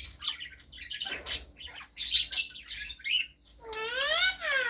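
Parrots chirping and squawking in short, scattered calls, then one longer call that rises and falls in pitch near the end.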